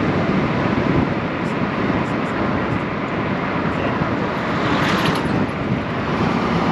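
Steady rushing noise of a car driving in the rain: rain and tyres on the wet road.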